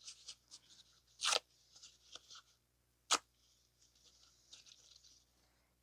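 Faint handling of a cut-open oil filter's pleated paper element: soft rustling and crinkling, with a short scrape about a second in and a sharp click about three seconds in.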